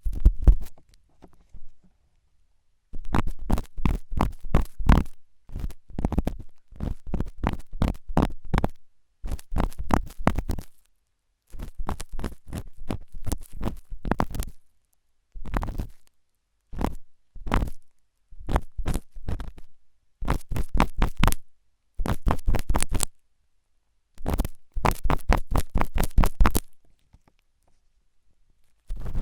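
Forceful ASMR ear cleaning: an ear pick scraping and scratching hard in rapid strokes. The strokes come in bursts of a second or two, separated by short silences.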